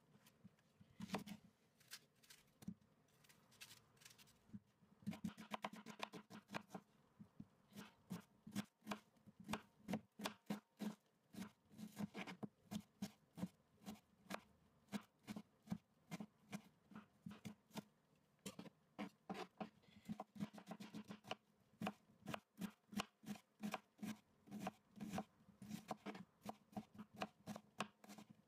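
Kitchen knife dicing dry onions on a wooden cutting board: a few separate cuts at first, then steady, rapid chopping with several knife knocks a second from about five seconds in.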